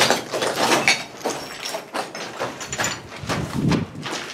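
Footsteps and scuffs over debris, with camera handling knocks, as someone walks through a derelict building carrying the camera. The knocks come irregularly, a few a second, with a heavier thud a little after three seconds in.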